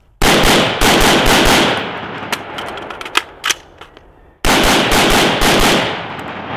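AR-15-style carbine firing two rapid strings of about six shots each, the reports echoing after each string. Between the strings comes a pause of about three seconds for a slide-lock reload, with a few metallic clicks and one sharp clack.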